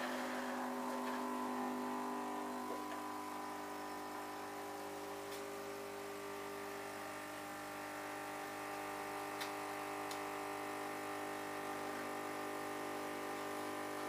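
Bosch Tassimo Joy capsule coffee machine brewing a milk T-disc: its pump hums steadily, a buzzing drone with several steady tones, while milk streams into the cup. The lowest tone drops out about three seconds in.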